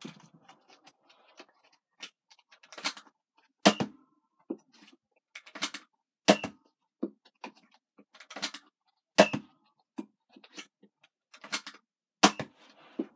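Nerf Mega Bigshock, a single-shot spring-powered dart pistol, fired four times about three seconds apart. Each sharp shot comes a moment after a lighter click as the pull-down priming handle is drawn back, with small plastic clicks of a Mega round being loaded between shots.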